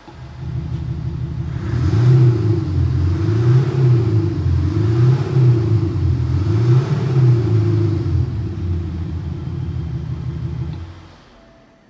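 Range Rover Velar revved four times with a Kufatec Sound Booster PRO playing a simulated large-engine (V6/V8) rumble from the rear, then settling to a steady idle before fading out near the end.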